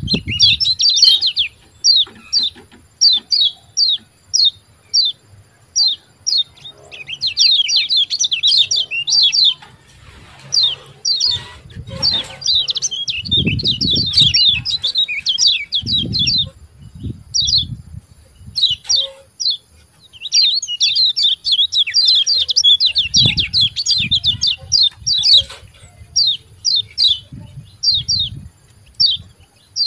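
Kecial kuning (yellow white-eye) calling: sharp 'ciak' chirps given singly and in quick runs, breaking into fast chattering bursts with short pauses between. A few dull low rumbles sound under the calls.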